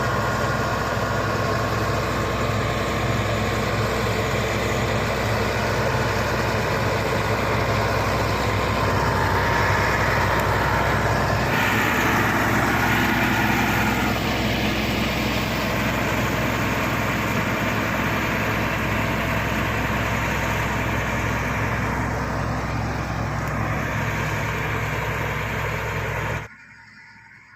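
Shantui SD16 crawler bulldozer's diesel engine running steadily, with a brighter, harsher stretch of mechanical noise from about nine to fourteen seconds in. The sound cuts off suddenly near the end.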